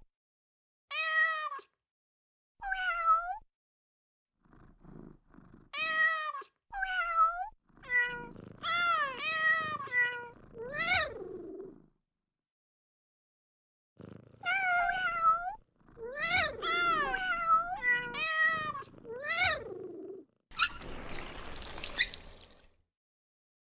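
Cartoon cat meows from Google's International Cat Day search animation played on a phone: a string of short meows that rise and fall in pitch, some in quick overlapping runs, with a low rumble under some. Near the end, a rough, noisy sound lasts about two seconds.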